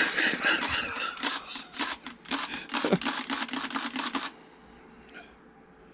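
Rapid, irregular mechanical clicking and rattling from a Harbor Freight LYNXX 40V battery chainsaw being handled while it refuses to keep running. The clicking stops about four seconds in.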